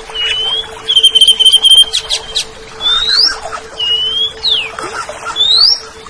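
Greater green leafbird (cucak ijo) singing a string of clear whistled notes that slur up and down in pitch, with a quick run of repeated notes about a second in. A steady low hum runs underneath.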